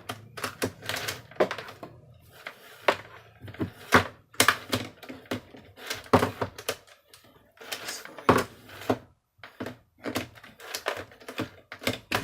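Irregular clicks, knocks and rattles of the plastic housing parts of a Miele vacuum cleaner being handled and fitted together during reassembly. A low hum fades out about a second in.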